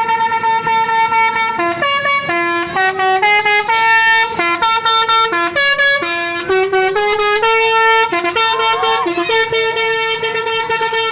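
Bus telolet horn (Basuri multi-tone horn) playing a tune: a held note, then a quick run of stepping notes with a few sliding ones, then the held note again.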